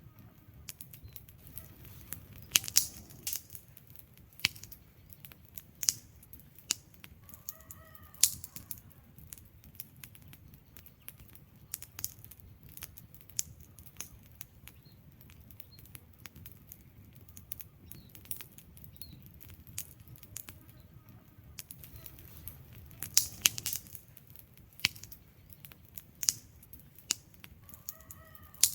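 Wood fire burning, with irregular crackles and sharp pops from the logs over a low, steady rumble of the flames.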